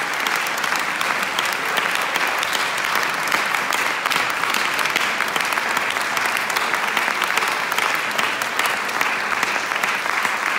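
Audience applauding: many hands clapping in a dense, even patter at a steady level.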